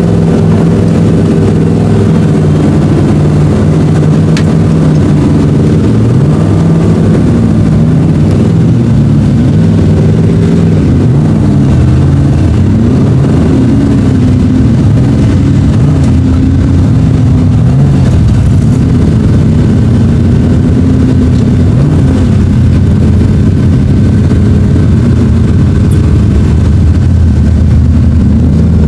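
An off-road 4x4's engine running at crawling speed, its pitch rising and falling as the throttle is worked.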